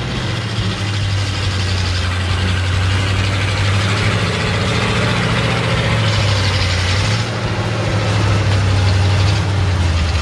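Chevy square-body mud truck's V8 on open headers idling with a steady low note as the truck creeps forward.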